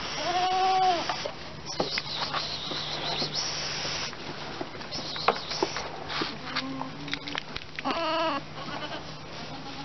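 Goat bleating and coughing: a bleat at the start, then short sharp coughs, and a wavering bleat near the end.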